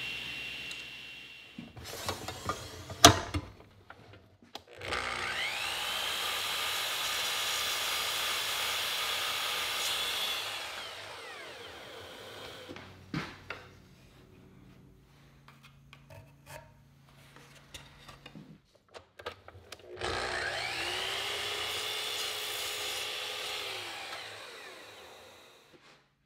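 A power miter saw spins up with a rising whine, runs steadily through a cut in a wooden molding strip, then winds down. This happens twice, the second about fifteen seconds after the first. Before the first cut, a steady tool whine stops about two seconds in, followed by sharp wooden clacks, the loudest about three seconds in, and small knocks of the wood being handled between the cuts.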